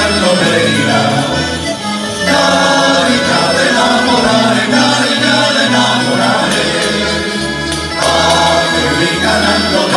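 Live folk music: a male chorus singing in unison over accordion, bagpipe and drums, with a steady low drumbeat.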